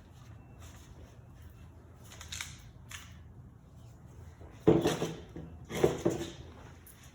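Chainsaw handle parts being handled and fitted back together by hand: a few small clicks, then two louder knocks, a little over a second apart, near the end.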